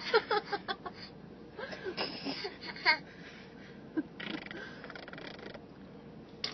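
A toddler blowing raspberries, buzzing the lips to make fart noises, in short bursts mixed with little vocal sounds, with a longer buzzy raspberry about four seconds in.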